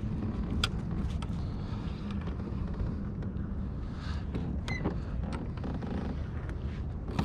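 Steady low rumble with a few scattered light clicks and creaks from the pedal fishing kayak and its rod and reel being handled.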